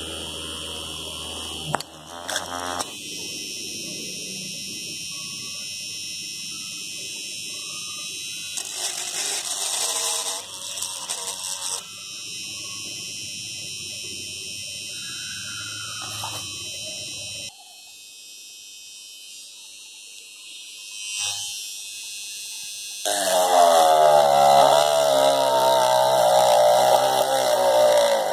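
Homemade drill built from an RS-555 12 V DC motor whining as it drills a small hole through PVC pipe. In the last few seconds it runs much louder as the bit bites into the bottom of a metal can, its pitch wavering under the load.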